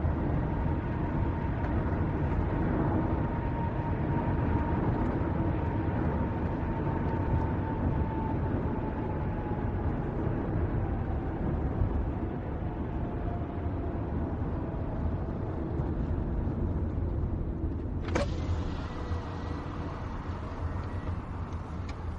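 Car cabin sound while driving: a steady low engine and road rumble with a faint whine that slowly falls in pitch. A single sharp click comes about 18 seconds in.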